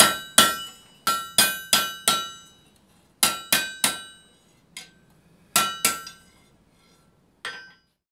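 Blacksmith's hand hammer striking a red-hot steel bar on an anvil, each blow ringing sharply. The blows come in quick runs of three or four with short pauses between, thinning to a few single strikes near the end.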